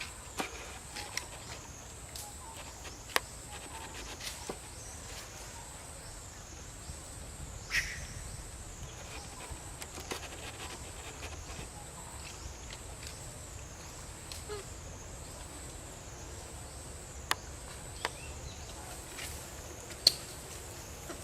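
Outdoor ambience: a steady high-pitched drone that dips about once a second, with scattered sharp clicks and taps.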